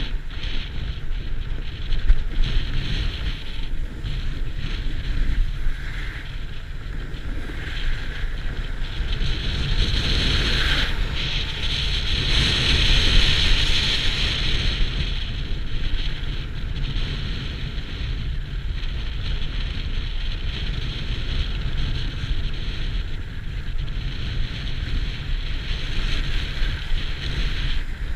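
Wind buffeting a helmet camera's microphone over the steady hiss and scrape of a snowboard sliding across packed snow, louder for a few seconds around the middle.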